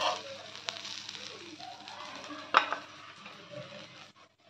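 Battered okra frying on a flat griddle with a faint sizzle, while a metal spatula scrapes along the pan lifting the pieces off. One sharp scrape or clack comes about two and a half seconds in, and the sound fades out near the end.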